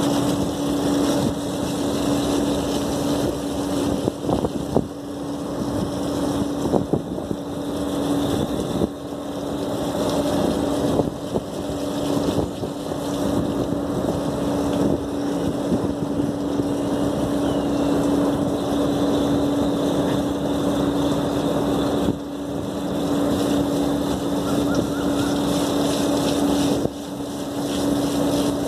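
Water jet from a hose nozzle spraying and hissing against the finned condenser coils of an air-cooled SKM chiller as they are washed, over a steady machine hum.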